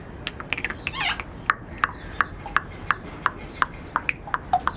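Pet parrots clicking: a run of short sharp clicks, about three a second, with a brief warbling call about a second in.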